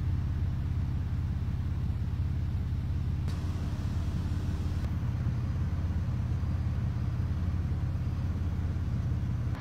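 Steady low rumble of a car driving, as heard inside the cabin.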